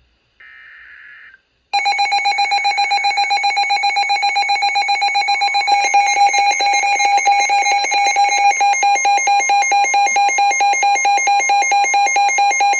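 Midland NOAA weather radios going into tornado-warning alert: a short faint burst of data tones, then a loud, rapidly pulsing electronic alarm from one radio. About five seconds in, a second pulsing alarm and a steady tone join it.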